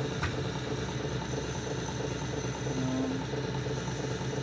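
A Boxford lathe running slowly, taking a very light finishing cut on a large forged-iron workpiece held in a steady: a steady mechanical hum with a short higher tone about three seconds in.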